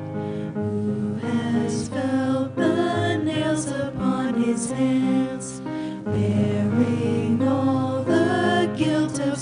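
Worship song during a church service: singing over instrumental accompaniment, slow and sustained.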